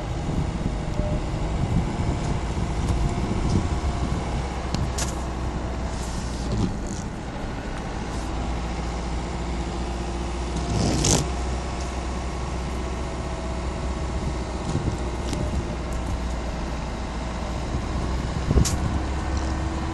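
Car driving slowly through deep snow: a steady low engine rumble with faint steady tones, broken by a few sharp knocks.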